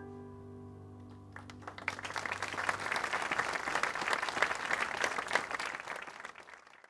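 A held piano chord dies away, then audience applause breaks out about a second and a half in, grows, and fades out near the end.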